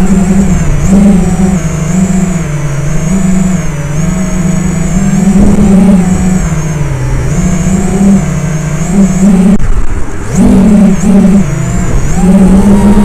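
FPV quadcopter's brushless motors and propellers whining loudly in flight, the pitch rising and falling constantly with the throttle. About ten seconds in the throttle drops off for a moment, then the motors spin back up. Wind rumbles over the onboard microphone.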